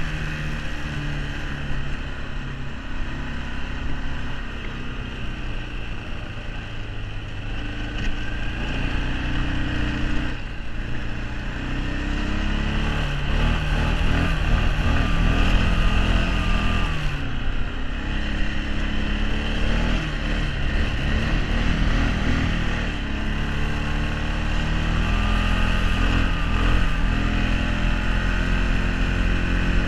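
Arctic Cat 454 ATV's single-cylinder four-stroke engine running under way, its pitch rising and falling as the throttle is opened and eased off.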